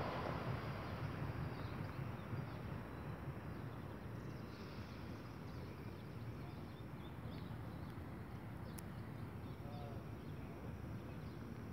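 Outdoor ambience: a low steady rumble with faint bird chirps scattered through the middle.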